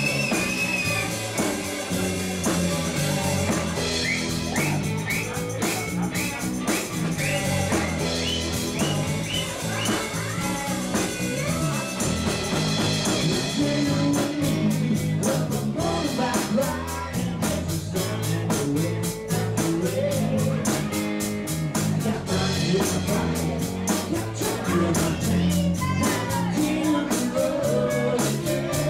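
Live country-rock band playing, with acoustic guitar over a steady bass and beat. A high lead line with short upward slides stands out in the first ten seconds, and the beat grows busier about halfway through.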